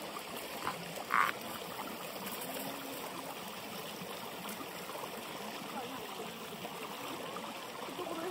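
Shallow river water running over stones, a steady even rush, with one short sharp sound about a second in.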